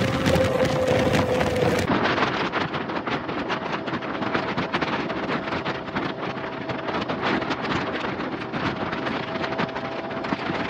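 Wind buffeting a phone microphone on a moving motorbike, with the bike's engine hum steady underneath. The sound changes abruptly about two seconds in.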